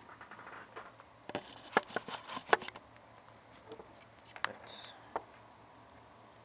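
Scattered sharp clicks and knocks of handling a metal padlock and lock-picking tools. They bunch together over about a second, starting a little over a second in, and two more single clicks come later.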